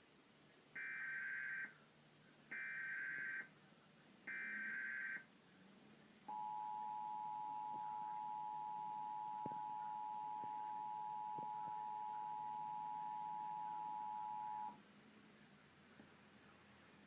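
Emergency Alert System broadcast signal: three separate bursts of warbling digital data, each about a second long, which form the SAME header. They are followed by the two-tone attention signal, held steady for about eight seconds and then cutting off suddenly.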